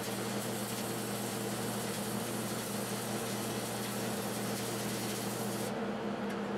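Stick (SMAW) arc welding with a 7018 electrode: a steady frying crackle and hiss from the arc that breaks off about a second before the end. A low hum runs on underneath throughout.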